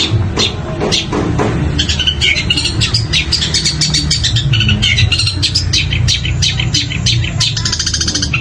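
Long-tailed shrike (cendet) singing a fast, unbroken run of short chirping notes.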